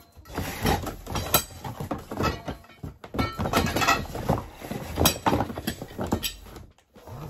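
Cardboard packaging rustling while white metal clothing-rack tubes are pulled out of their box, knocking and clinking irregularly against each other and the cardboard.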